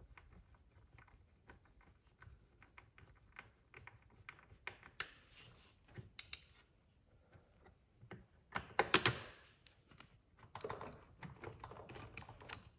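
Ratchet wrench clicking in quick runs as the 8 mm bolts of a Honda Navi's left crankcase cover are backed out, with a louder clatter about nine seconds in.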